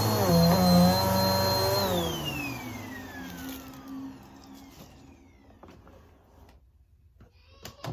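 Vacuum cleaner running, then switched off about two seconds in: its motor whine falls in pitch and fades as it spins down. A couple of sharp clicks near the end.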